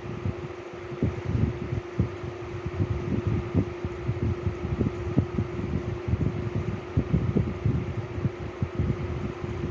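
A fan running: a steady hum over a dense, irregular low rumble of soft thumps.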